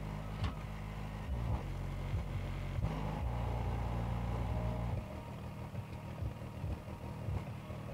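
75GDN-3-4 100 W 4-ohm subwoofer driver playing deep bass notes that change pitch every second or two, with a few light ticks.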